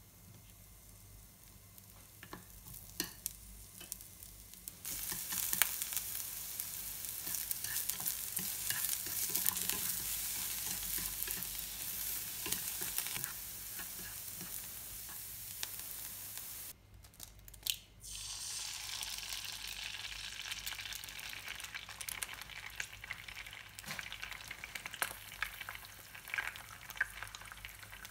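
Julienned vegetables frying in oil in a non-stick frying pan, sizzling and stirred with small clicking taps of the utensil in the pan. The sizzle turns much louder about five seconds in, drops out briefly about two-thirds of the way through, then carries on.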